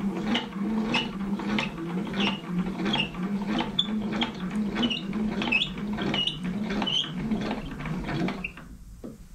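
Milling machine table being cranked along its leadscrew: a rhythmic mechanical squeak and tick repeating a little under twice a second, stopping shortly before the end. The table is traversing the clamped casting past a dial test indicator to check that its edge runs square.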